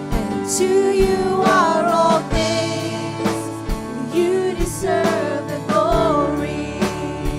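Live worship band playing with a singer's voice carrying a melody over sustained chords and a steady kick drum beat.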